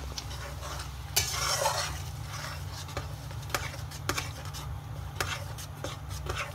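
Metal ladle stirring a thick spice paste frying in oil and butter in a wok, scraping and clicking against the pan, over a faint sizzle. A longer scrape comes about a second in, then scattered clicks.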